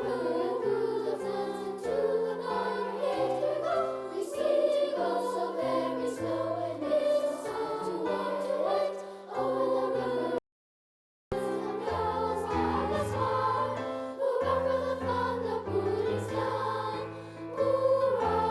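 A children's school choir singing with piano accompaniment. The sound cuts out completely for about a second midway, then the singing and piano resume.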